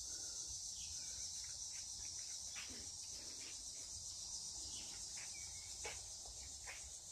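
Steady high-pitched drone of an insect chorus, with a few faint clicks.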